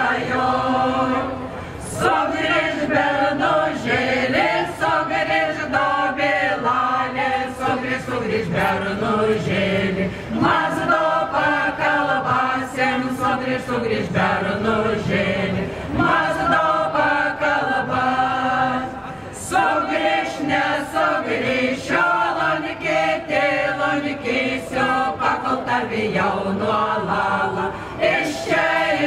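A group of voices singing a Lithuanian folk song, with no clear accompaniment. The phrases last a few seconds each, with short breaks between them.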